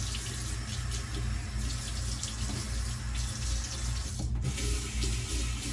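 Bathroom tap running steadily into a sink, a brief break about four seconds in, then the water flows again.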